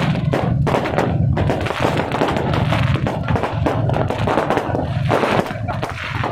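Fireworks and firecrackers going off in quick succession: a dense, irregular run of bangs and crackles.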